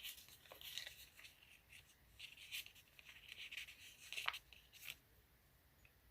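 Faint rustling and light clicks of paper sticker sheets being handled and date-dot stickers pressed onto a planner page, dying away after about five seconds.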